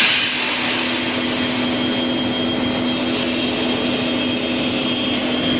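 Screw oil expeller running as it presses sunflower seeds: a steady mechanical drone with a constant low hum and a faint high whine.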